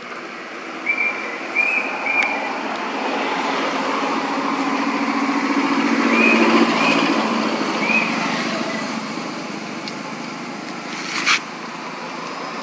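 A motor vehicle passing by, its engine and road noise swelling to a peak about halfway through and then fading away. A few short high chirps come early on, and there is one sharp click near the end.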